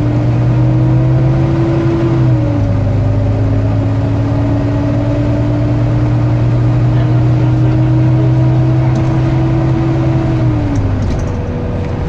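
Volvo B9TL double-decker bus under way, heard from the upper deck: its nine-litre six-cylinder diesel and drivetrain give a loud, steady whine of the vacuum-cleaner kind that enthusiasts call a 'hoover'. The whine rises slowly, dips in pitch about two seconds in, holds steady, then falls away near the end.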